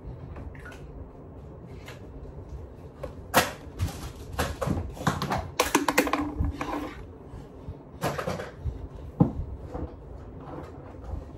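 Irregular clicks and knocks of objects being handled, busiest through the middle, with a brief low hum about six seconds in.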